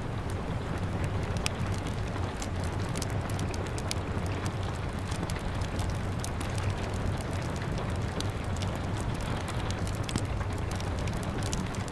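Wood fire crackling with frequent sharp pops, over steady rain patter and a low rumble.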